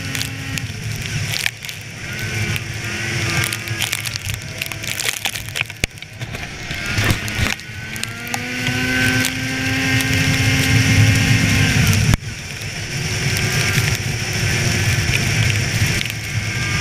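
Polaris snowmobile engine running at trail speed. The engine note climbs around 7 s in, holds, drops abruptly about 12 s in as the throttle is let off, then builds again. Frequent clattering knocks run through it.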